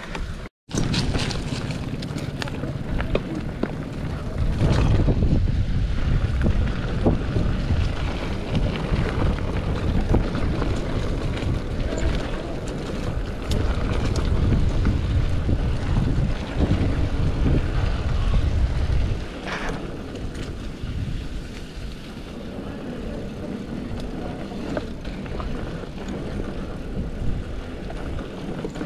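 Wind buffeting the microphone of a camera riding on a mountain bike, with rattles and clicks from the bike as it goes over the trail. The buffeting is heaviest from about four seconds in until about nineteen seconds in. The sound cuts out for a moment just after the start.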